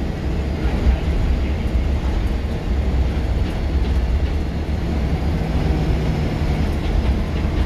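Scania L94UB single-deck bus under way, heard from inside the saloon: a steady rumble of its rear-mounted diesel engine and road noise.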